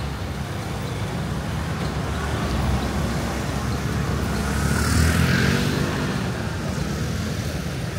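Street traffic with a motor vehicle passing close by: a low engine rumble swells to its loudest about five seconds in, then fades.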